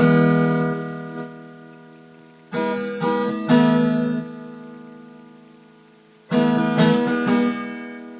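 Acoustic guitar playing a song intro: a chord strummed at the start and left to ring, then two groups of three quick strums, one about two and a half seconds in and one about six seconds in, each fading slowly.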